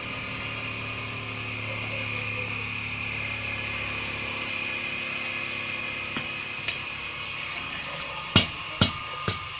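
Red-hot khukuri tang sizzling as it is burned into the wooden handle, a steady hiss over a low hum. Near the end come three sharp knocks about half a second apart as the handle is driven down onto the tang.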